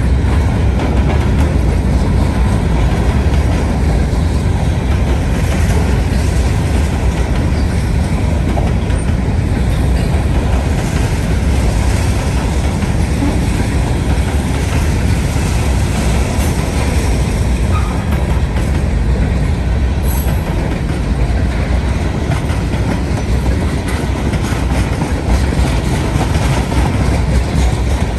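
Freight train rolling past: a steady, loud rumble and rattle of its cars' wheels on the rails.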